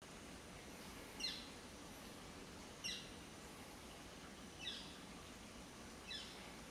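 A small bird calling: four short chirps, each a quick run of notes falling in pitch, about one and a half seconds apart, over faint background noise.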